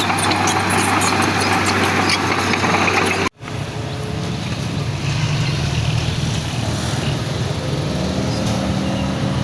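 Heavy diesel engines of earthmoving machinery running. The first three seconds are louder, with scattered clanks. After an abrupt cut a little over three seconds in, a steadier engine drone follows.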